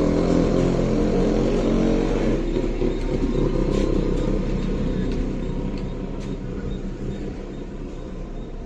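A motor vehicle engine running and fading away over several seconds, over a steady background of street noise.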